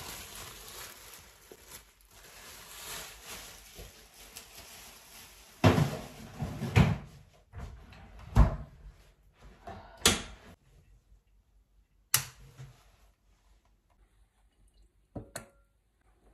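Kitchen clatter: a faint steady noise for the first few seconds, then about six separate knocks and clinks of utensils and cookware handled in the kitchen, the loudest three close together in the middle.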